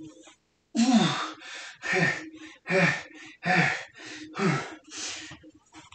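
A man breathing hard with exertion while doing repeated squats: about six short, forceful exhales with a slight falling voice, one roughly every second, in time with the reps.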